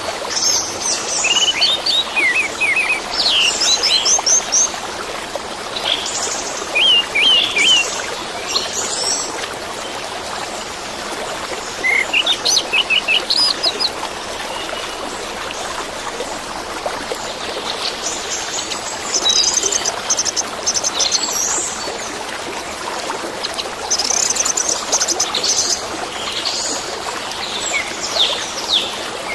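Orange-headed thrush singing in separate phrases of quick, high chirps and trills, with short pauses between phrases, over the steady rush of running water.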